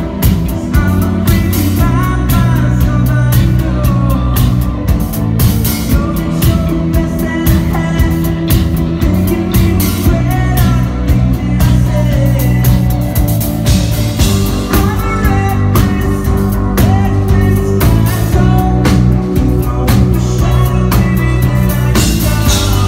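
Live rock band playing loudly: electric guitar, bass and drum kit with a singer over them.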